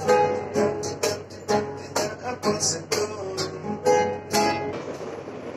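Acoustic guitar strumming chords about twice a second, stopping near the end.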